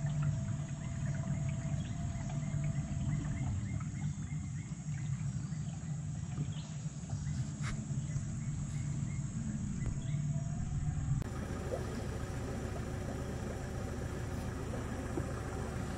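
Small boat's outboard motor running steadily at low speed, a low hum, with faint insect calls. About eleven seconds in the sound changes abruptly to a different steady background.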